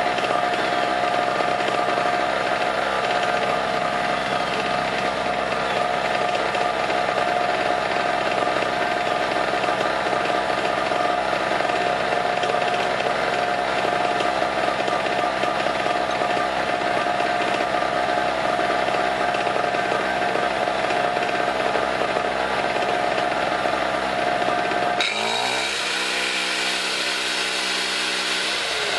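Harbor Freight 800-watt portable generator's small 63cc two-stroke engine running steadily with a fairly high, even note, freshly started for the first time. Near the end the sound changes suddenly and its pitch wavers.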